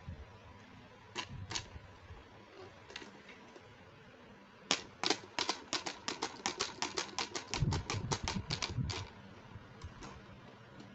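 Sharp clicks from the toy set being handled: a few single clicks, then a fast run of clicks about six or seven a second for some four seconds, ending a second or two before the close.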